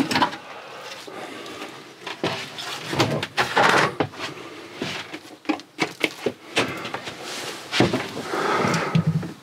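Top cover of a 12 V camper fridge being unscrewed and worked loose by hand: irregular knocks, clicks and scraping of the panel until it comes off.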